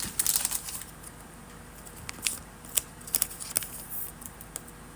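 Trading cards being handled and flipped through: crisp rustles and snaps of card stock sliding against card, busiest in the first second, then scattered single clicks.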